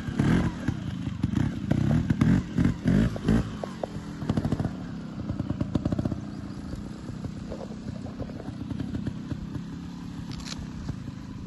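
A 2016 Beta Evo single-cylinder two-stroke trials motorcycle being ridden. For the first four seconds or so the throttle is snapped open in short loud bursts; after that the engine runs more quietly and evenly.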